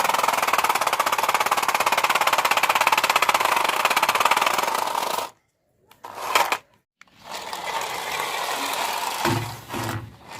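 Toy remote-control car's small electric motor and gearbox running flat out with a fast buzzing rattle, cutting off abruptly about five seconds in. After a short blip and a pause it runs again, more quietly, from about seven seconds in.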